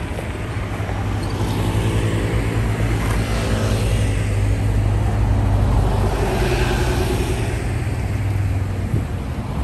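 A motor vehicle's engine running close by with a low, steady hum. It grows louder toward the middle and eases off near the end, over the noise of street traffic.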